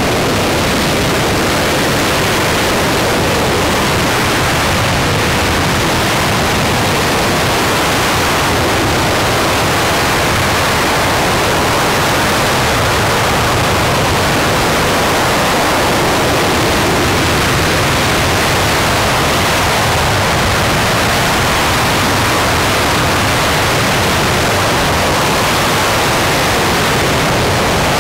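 RS-25 liquid-hydrogen/liquid-oxygen rocket engine, the former space shuttle main engine, firing steadily during a static test: a loud, even rush of noise spread across low and high pitches, with no change in level.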